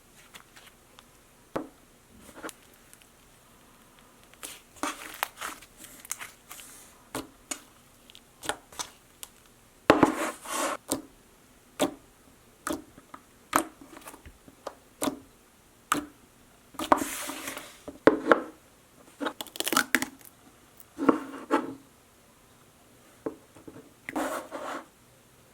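Slime being squished, poked and stretched by hand, making irregular sticky clicks, pops and crackles, with a few longer crackly squishes about ten and seventeen seconds in.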